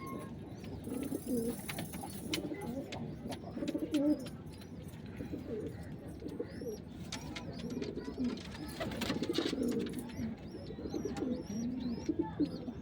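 Several domestic pigeons cooing, their low calls overlapping and repeating throughout, with scattered clicks. High-pitched chirping joins in from about halfway through.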